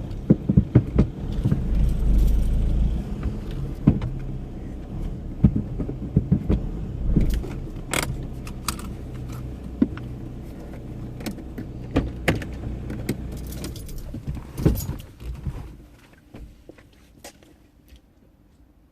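A vehicle engine running steadily, with many sharp clinks and knocks over it. The engine and the clatter die away about sixteen seconds in.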